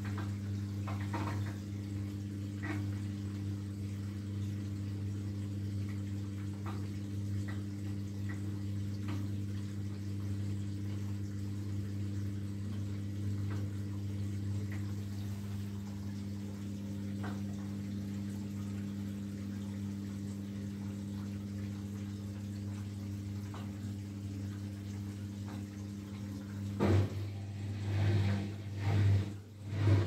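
Indesit Innex washing machine running: a steady electric hum with water running through it. About 27 seconds in, the drum motor starts turning in loud, rising and falling surges.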